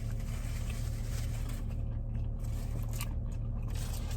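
Steady low hum of a car cabin with the engine running, with faint scrapes and small clicks from handling and eating food.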